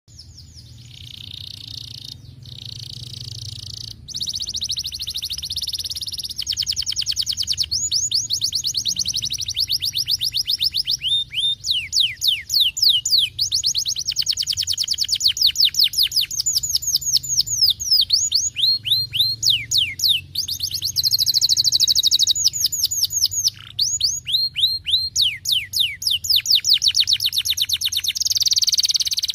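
Domestic canary singing a long, fast song of high trills: runs of rapid downward-sweeping notes alternating with buzzing rolls, with short breaks between phrases.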